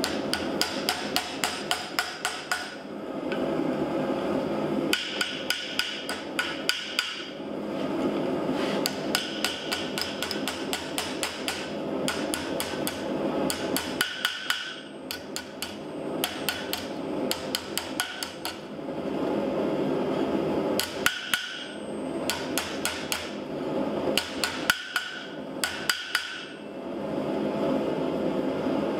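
Hand hammer striking a hot steel skull faceplate formed over a trailer-hitch tow ball: quick runs of sharp metal-on-metal blows, several a second, many with a short ring. The runs are broken by brief pauses.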